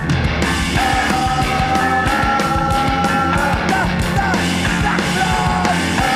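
Loud noise-pop rock music with a steady beat under long held notes.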